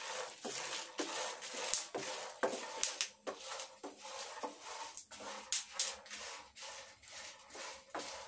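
Spatula stirring and scraping dal and dried red chillies as they dry-roast in a kadai with no oil. Irregular scrapes, roughly two a second, over a light hiss.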